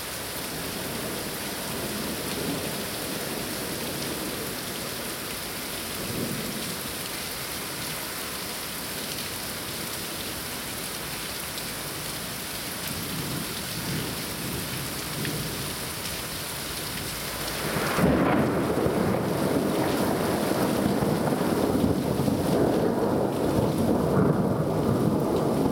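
Heavy rain falling steadily. About two-thirds of the way through, a long roll of thunder starts suddenly and keeps rumbling.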